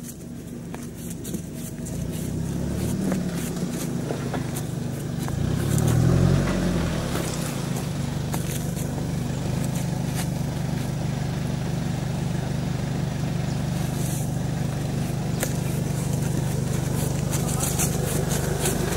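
Off-road 4x4's engine running under load as it crawls along a rutted forest track, fading in at the start, revving up briefly about three seconds in and again, louder, around six seconds in, then holding steady. Light clicks and crackles sound over the engine.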